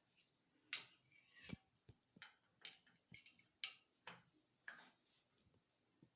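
A run of about eight light clicks and taps from handling a towel rack on its wall brackets while adjusting its position, with one duller knock among them.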